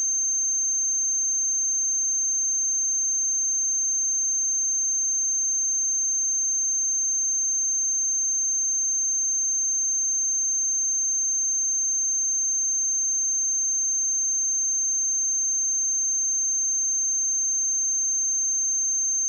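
A pure 6315 Hz sine-wave test tone, one steady high-pitched whistle-like pitch held at an even level with nothing else.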